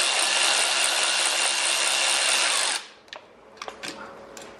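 Cordless electric ratchet running steadily on a socket extension, spinning out a bolt on the engine's water pump housing, then stopping suddenly a little under three seconds in. A few faint clicks of metal parts being handled follow.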